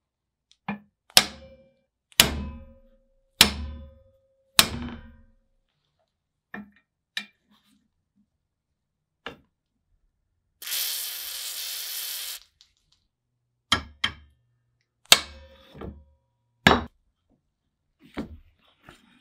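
Hammer blows on the rusty cast-iron crank and shaft of an antique ice cream maker, four sharp ringing strikes a little over a second apart, then a hiss of aerosol lubricant sprayed through a straw for about two seconds, then more hammer strikes. The crank handle is seized on its shaft and is being knocked loose.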